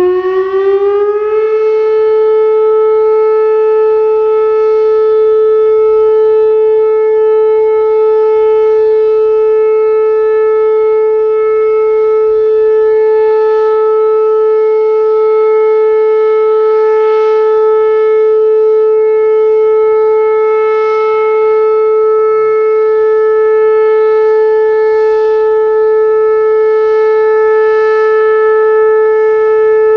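Whelen WPS 2810 electronic outdoor warning siren sounding in a system test: the tone climbs quickly in pitch over the first second or two, then holds one steady pitch.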